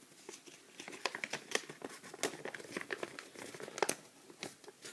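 Crinkling and rustling of something being handled by hand: a dense run of small crackles and ticks.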